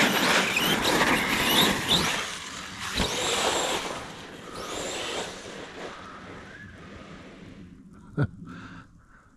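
Kraton XL RC truck driving in wet snow. The electric motor whines, rising and falling in pitch as the throttle is worked, over a hiss of tires churning the snow. It is loud for the first few seconds, then fades, with a sharp click about eight seconds in.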